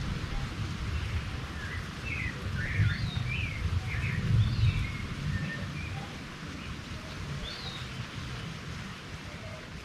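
Birds chirping in short, scattered calls, most of them in the first half, over a steady hiss and a low rumble that eases off after about five seconds.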